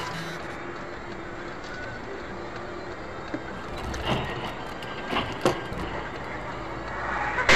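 Dashcam traffic audio: steady road and engine noise with a few short knocks about four and five and a half seconds in.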